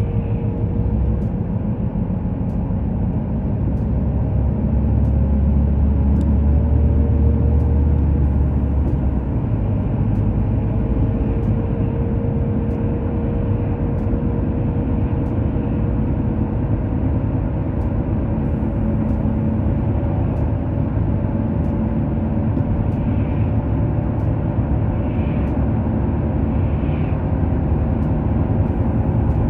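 Car cabin noise while driving at road speed: a steady low rumble of tyres and engine with a faint steady hum, swelling a little for a few seconds near the start.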